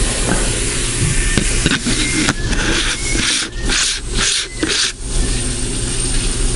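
Camera handling noise: hands rubbing and scraping against the camera while a fisheye adapter lens is fitted, in several rough strokes between about two and five seconds in, with a few light clicks before them.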